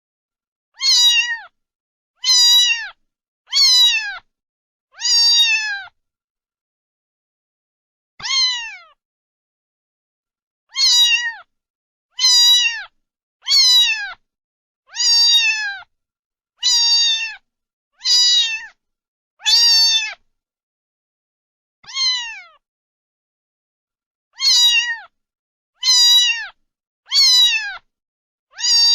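Domestic cat meowing over and over: about seventeen short meows, each falling in pitch, mostly a second or so apart, with a few longer pauses.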